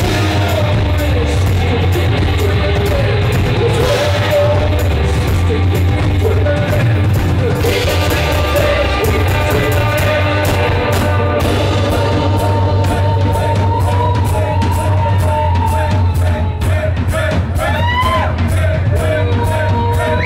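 Live band playing loud, with banjo, pedal steel guitar and drums under sung vocals. Pitches slide up and down in the last few seconds.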